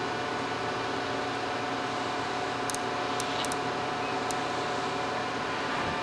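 Steady hum of machine-shop equipment with several constant tones, like a motor or fan running. A few faint light ticks come about halfway through.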